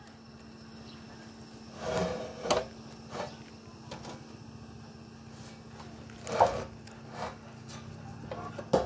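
A handful of short knocks and clatters spread over several seconds, the loudest about six seconds in, over a faint steady hum.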